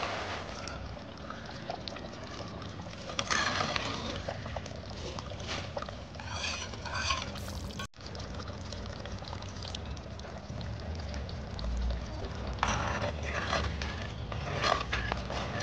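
A spoon stirring food in a metal cooking pan, scraping and clinking against the metal in short clusters of strokes.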